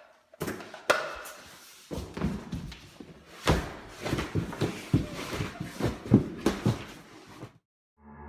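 A rapid, irregular series of thuds and knocks with scraping, scuffling noise between them, stopping abruptly near the end.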